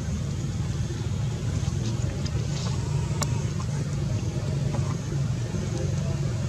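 Steady low rumble of a running motor, with one faint click about three seconds in.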